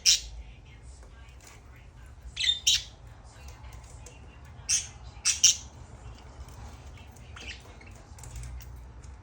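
Budgerigar giving short, sharp squawks, several in quick pairs, with soft chirps between them.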